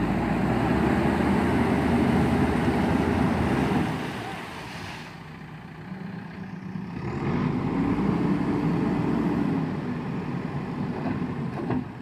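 JCB 3DX backhoe loader's diesel engine running as the machine drives through shallow river water, its wheels splashing. The engine swells twice: over the first four seconds, and again rising and falling between about seven and ten seconds in.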